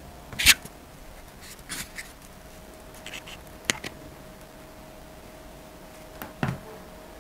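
Handling a hot glue gun while gluing a pad to a hat brim: a few short sharp plastic clicks and taps, the loudest about half a second in, and a duller knock near the end as the gun is set down. A faint steady hum runs underneath.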